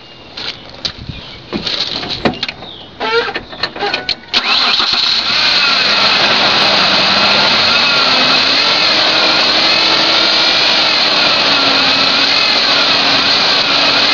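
A few clicks and knocks, then the Ford Ranger's engine cranks and starts about four seconds in and runs steadily, with a wavering whine over it. Its serpentine belt has just been dressed with belt-dressing paste to stop a chirp.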